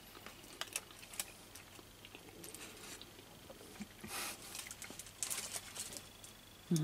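Faint mouth sounds of someone chewing a piece of soft chocolate: scattered small clicks, with two brief soft rustles about four and five seconds in.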